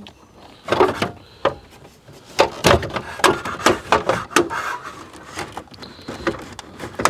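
Plastic dash trim bezel of a Chevrolet Tahoe being tugged and pried at by hand, giving an irregular series of sharp clicks, knocks and rattles as it is worked against its clips. The bezel stays stuck.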